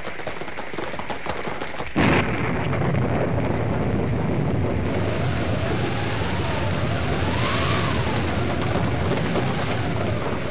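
Live radio sound effects for a posse riding through a storm. For about two seconds there is quick clattering of hand-held hoofbeat effects, likely coconut shells. Then a sudden crash of staged thunder opens a steady rushing rumble, and from about halfway the rising and falling howl of a hand-cranked wind machine comes in.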